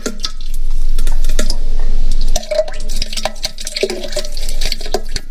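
Cartoon pooping sound effect: a loud, dense crackling, wet-sounding noise that breaks up into more separate splats about halfway through.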